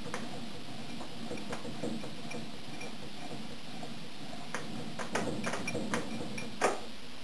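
Stirling unit running as a refrigerator: a steady running noise with irregular ticks and clicks from the mechanism, the ticks bunching up in the second half and one sharper click near the end.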